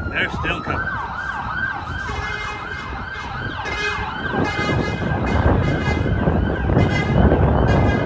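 Emergency vehicle siren in its fast yelp, the pitch sweeping up and down about three times a second, over a steady rumble that grows louder in the second half.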